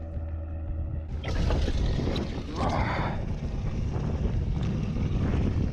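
A boat's motor running over a steady low rumble, with wind and water noise rising about a second in and a brief louder rush a little before the middle.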